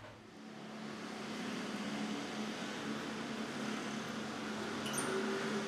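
A steady low hum over an even background noise, with a faint brief click about five seconds in.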